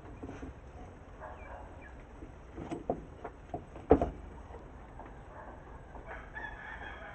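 A few sharp metal clicks and knocks from a starter motor's armature and drive-end housing being handled, the loudest about four seconds in. A rooster crows in the background, with a drawn-out call near the end.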